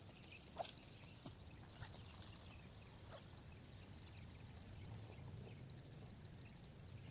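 Quiet outdoor ambience: a faint steady high insect drone, with a few soft clicks in the first couple of seconds.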